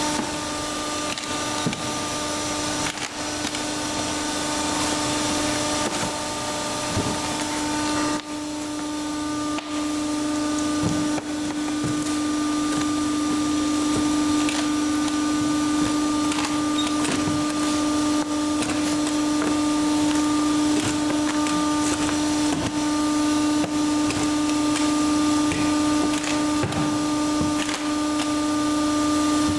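A steady mechanical hum with a constant low tone, under a wash of machine noise and scattered light clicks and knocks.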